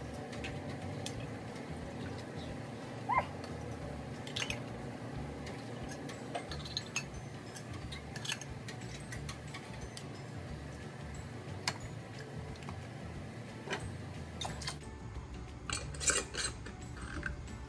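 Metal canning lids and screw bands clicking and clinking against glass half-pint jars as they are set on and twisted on by hand. Scattered light clicks, with a louder click and short ring about three seconds in and a cluster of clicks near the end, over a low steady hum.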